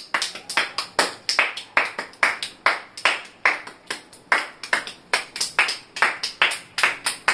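Hands clapping close by in a steady, even rhythm of about four to five claps a second.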